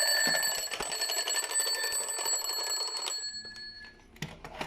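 Battery-powered analog alarm clock's alarm ringing with a fast, even pulsing. It stops about three seconds in, followed by a few sharp clicks.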